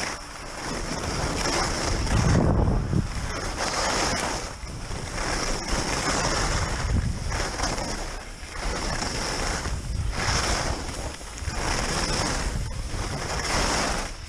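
Skis hissing and scraping over packed snow through a run of turns, the noise swelling and fading every second or two, with wind buffeting the microphone.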